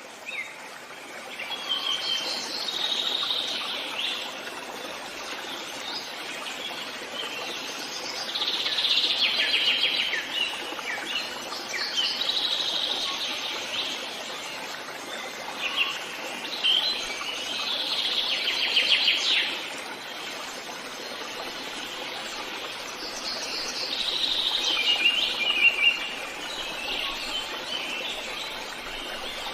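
Forest songbirds singing in several separate bursts of chirps and trilled phrases, the loudest about 8 to 11 and 16 to 19 seconds in, over a faint steady background hiss.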